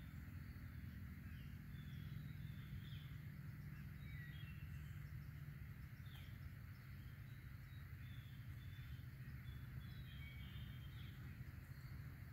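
Woodland birds chirping on and off in short high calls over a steady low rumble.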